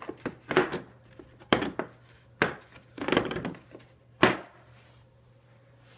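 Chrome sockets being handled and set back into a moulded plastic socket-set case: a string of clicks and knocks, the loudest a sharp knock a little after four seconds in.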